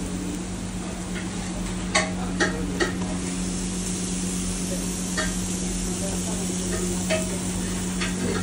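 Buttered sandwiches sizzling on a hot grill, a steady hiss over a low hum. A few sharp knocks, three in quick succession about two seconds in.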